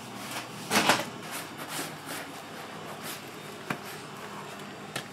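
Food-prep handling sounds: gloved hands working a filled bread sandwich through batter beside a tray of breadcrumbs, heard as scattered short rustles and a few sharp clicks, the loudest rustle about a second in.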